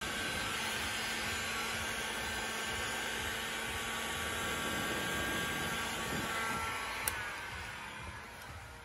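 Electric heat gun blowing steadily, warming the van's body panel to soften the adhesive of an old badge. About seven seconds in it clicks off and its fan motor winds down.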